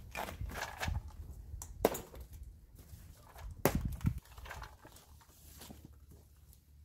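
A knife cutting open a strapped cardboard shipping box: scraping and rustling against the cardboard, with two sharp snaps, about two seconds in and again a couple of seconds later, as the plastic strapping bands are cut.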